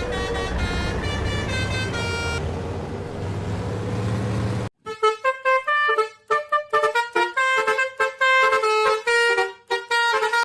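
Bus telolet horn playing a melody of pitched toots over a steady rumble. The sound cuts off abruptly about five seconds in, then gives way to a quick run of short, clipped horn notes stepping up and down in pitch.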